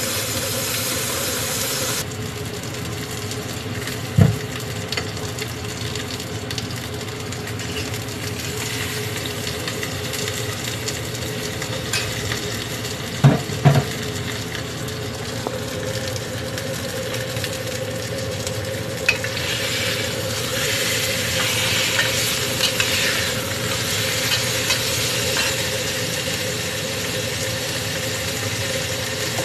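Food frying and sizzling in a pan while being stirred, with a utensil knocking against the pan once about four seconds in and twice in quick succession near the middle. A steady hum runs underneath, and the sizzle grows brighter in the latter part.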